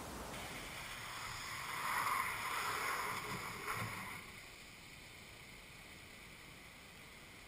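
Truck and trailer tyres hissing through water on a wet, slippery test surface. The rushing grows about two seconds in and eases off after about four seconds into a quieter steady hiss.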